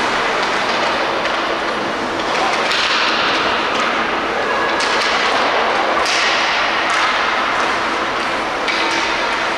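Ice hockey play on a rink: skate blades scraping and carving the ice in swelling hisses, with a few sharp clacks of stick on puck.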